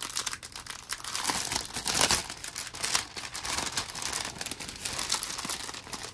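Crinkly packaging of small craft kits being handled and opened, an irregular crinkling that is loudest about two seconds in.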